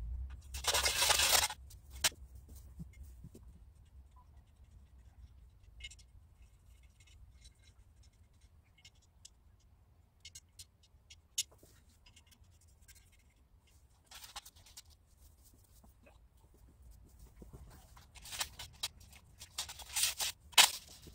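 Scraping and clicking of metal angle-pipe frame pieces being handled and fitted together: a loud scrape lasting about a second near the start, scattered faint ticks, and a burst of scrapes and sharp clicks near the end.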